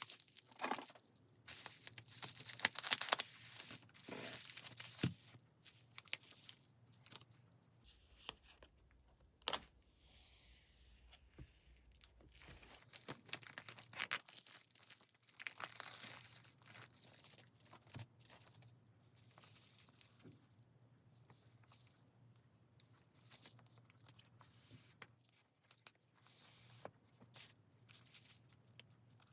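Packaging being opened by hand: crinkling and tearing in bursts, busiest in the first few seconds and again about halfway through, with scattered small clicks and taps between.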